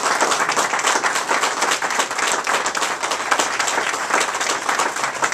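Audience applauding, many hands clapping steadily at once.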